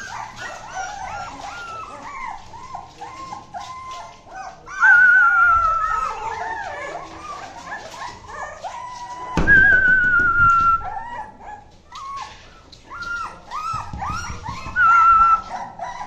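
A litter of young Rottweiler puppies whimpering and squealing together in a steady run of short high cries. Three longer, louder whining cries stand out, each sliding slightly down in pitch: about five seconds in, near the middle, and near the end.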